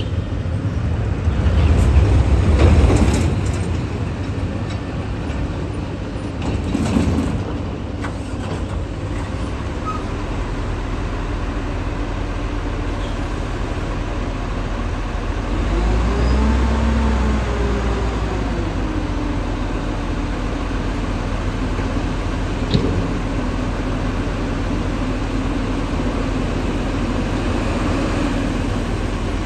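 Road traffic: vehicles passing close by one after another over a steady rumble, the loudest going by a couple of seconds in. About halfway through, a heavy vehicle's engine note rises and falls as it passes.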